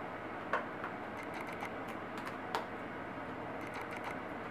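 A few light plastic clicks and taps from a Toshiba laptop keyboard as it is pried up and unclipped from its frame, the sharpest about two and a half seconds in, over a steady hiss.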